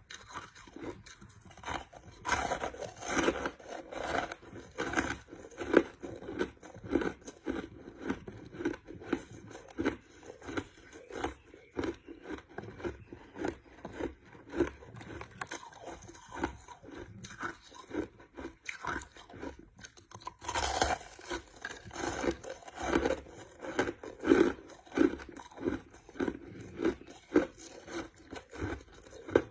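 Crushed ice being chewed close to the microphone: a continuous run of irregular crunches, with bursts of louder bites.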